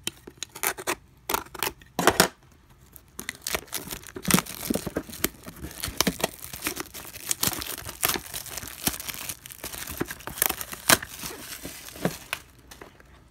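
Cardboard hobby box being cut and torn open at its taped seals: sharp snaps at first, then steady tearing and crinkling of packaging with many small clicks.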